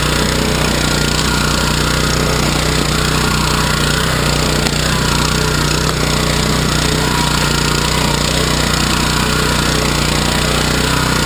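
Small gasoline engine of an AXO Garden two-wheeled walk-behind tractor running steadily under load, driving its rotary tiller through the soil.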